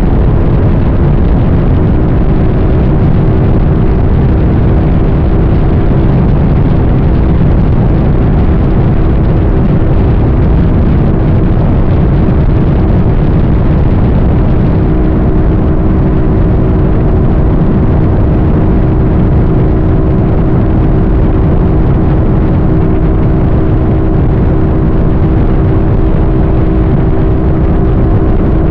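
A vehicle on the move at a steady speed: constant road and wind noise with a steady engine drone whose pitch shifts slightly a couple of times.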